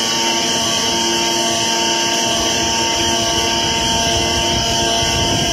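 CNC flatbed cutter plotter running while its tool head cuts a corrugated cardboard sheet: a steady machine whine made of several held tones over a loud even hiss.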